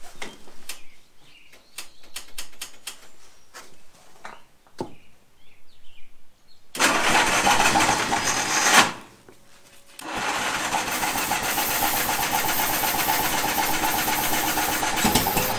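Caterpillar gasoline pony (starting) motor being cranked by its electric starter, with ether as starting fluid, in two goes: a short burst of about two seconds, then after a brief pause a longer run of about five seconds. Faint clicks and knocks come before the cranking.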